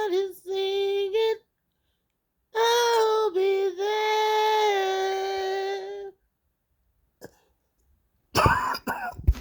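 A high voice singing unaccompanied: a short phrase, a pause, then one long held note of about three and a half seconds. Near the end come two loud coughs.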